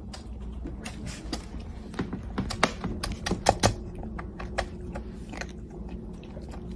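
A run of small, sharp clicks and taps at irregular spacing, loudest in a quick cluster around the middle.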